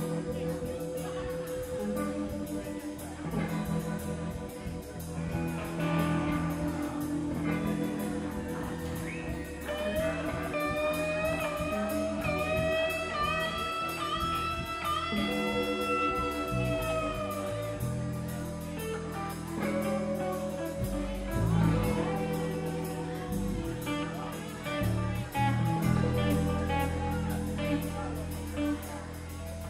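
Live band playing a blues-rock song with guitar and bass; midway a lead line holds one long note for several seconds, bending up and back down.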